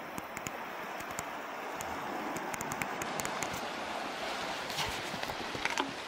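Steady rush of moving water, with scattered faint clicks over it.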